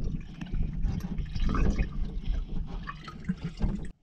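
Water lapping and sloshing against the hull of a small fishing boat, over an uneven low rumble with scattered small splashes; the sound cuts off abruptly near the end.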